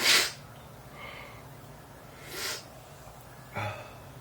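A man's allergic sneezing: a sharp burst of air through the nose and mouth at the very start, then sniffs and breaths about two and a half and three and a half seconds in.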